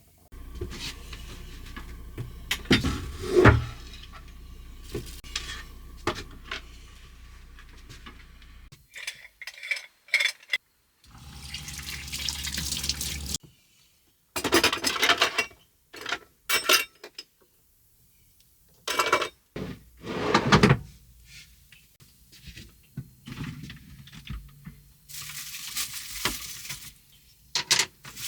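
Kitchen work in a string of short clips: dishes and cutlery clinking and clattering, with stretches of running water.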